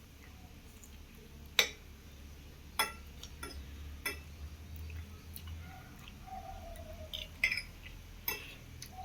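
Eating utensils clinking and knocking against plates, six or so separate sharp clicks a second or so apart, over a low steady hum.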